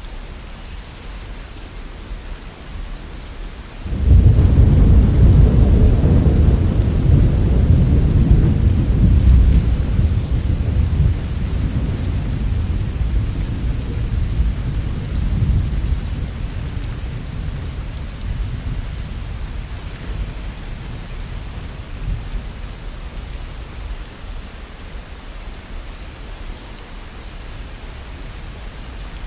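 Heavy rain falling steadily; about four seconds in a loud, deep roll of thunder breaks out and rumbles on, slowly fading over some twenty seconds.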